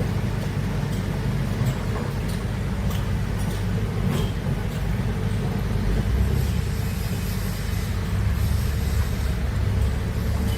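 Heavy diesel machinery, an excavator at work, running with a steady low rumble that grows a little stronger about six seconds in, with scattered short knocks.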